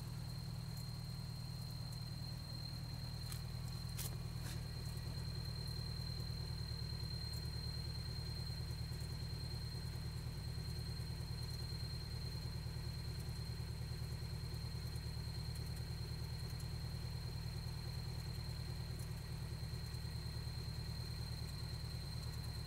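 Toyota 22RE 2.4-litre four-cylinder engine idling steadily. The owner suspects a slack timing chain or rod knock.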